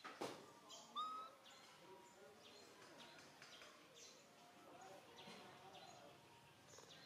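Faint bird chirps, many short falling notes, with a sharp click just after the start and a short rising whistled note about a second in.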